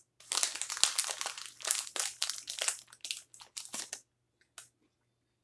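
Plastic snack pouch crinkling as a hand rummages inside it for a piece; the crinkling stops about four seconds in.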